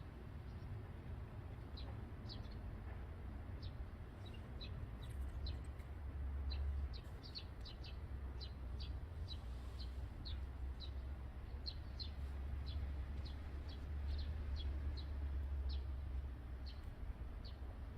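Small birds chirping: many short, high chirps, a few a second, over a low steady rumble that swells twice.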